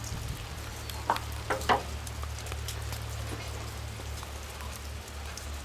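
Sizzling crackle with a few sharper pops about a second in, over the steady low hum of an engine-driven welder running.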